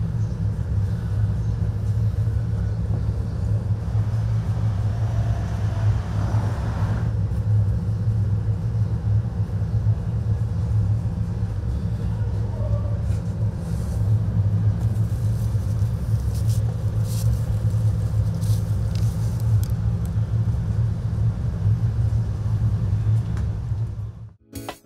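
A steady low rumble that cuts off near the end, where music begins.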